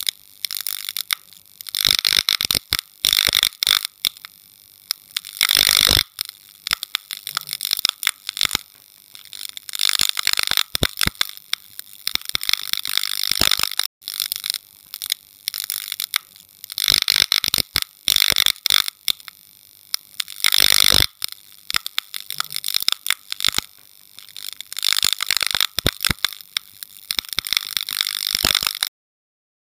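Harsh crackling, scraping noise in irregular bursts with sharp clicks, mostly high-pitched and without any tune. The same sequence of about 14 seconds plays twice, then cuts off suddenly near the end.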